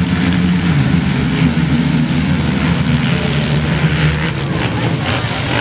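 Engines of a pack of racing ATVs running together at the starting line before the heat: a loud, steady drone with small shifts in pitch.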